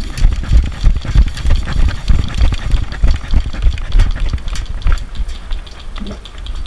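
A loud, uneven low rumble on the microphone, overlaid with scattered clicks and rustles.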